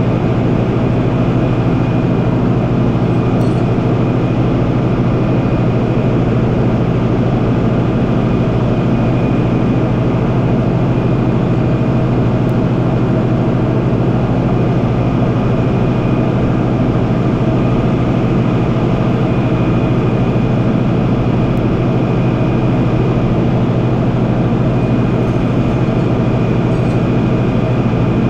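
Freightliner rollback tow truck's diesel engine idling steadily close by, a constant low drone with a faint steady high whine over it.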